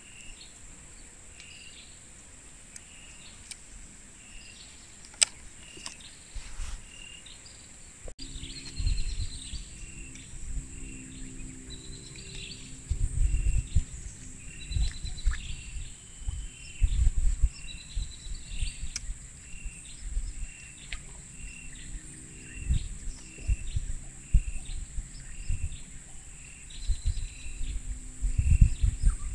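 Forest ambience: a steady high insect drone, with a bird repeating a short chirp about once a second among other bird calls. From about eight seconds in, gusts of wind buffet the microphone.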